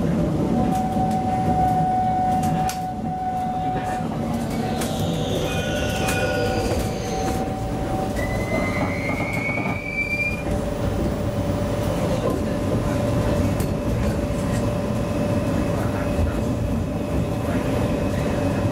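Steady running rumble inside a moving tram, with a steady hum tone throughout. Wheels squeal high on a curve from about five to ten seconds in, falling in pitch and then rising.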